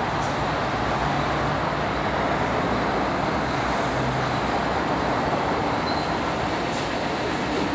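MTR Tuen Ma Line C-Train running out of the station as it departs, a steady rumble and hiss of the moving train.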